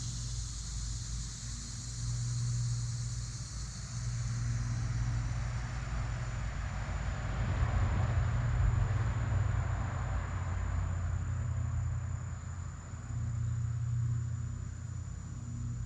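A motor passing by: a steady low engine rumble with a rush of noise that builds to a peak about halfway through and then fades. A thin, steady high whine runs above it.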